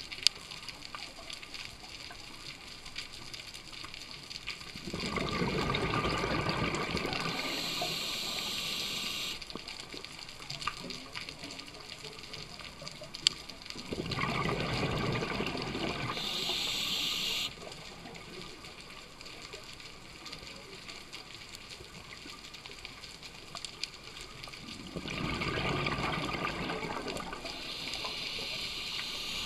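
Scuba diver's exhaled bubbles from the regulator: three long rushing bursts, each lasting three to four seconds and spaced about ten seconds apart, over a steady underwater hiss, with a couple of sharp clicks.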